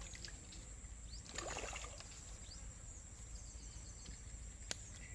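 Outdoor ambience with a steady low rumble and a faint steady high tone. A brief noisy burst comes about a second and a half in, and a single sharp click near the end.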